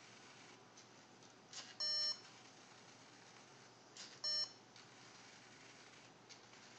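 Two short electronic beeps from a LEGO Mindstorms NXT brick's speaker, about two and a half seconds apart, each coming just after a soft click.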